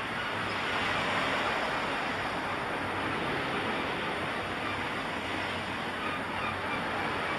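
Ocean waves washing on a shore: a steady, even rush of surf.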